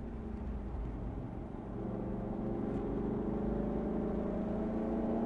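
2005 Cadillac CTS-V's LS6 V8 heard from inside the cabin, running on track over road and wind noise. The engine note grows louder and rises slightly in pitch from about two seconds in as it pulls.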